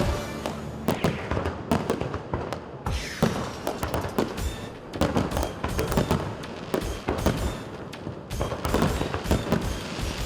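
Fireworks display: aerial shells bursting one after another in a rapid, irregular series of bangs and crackles.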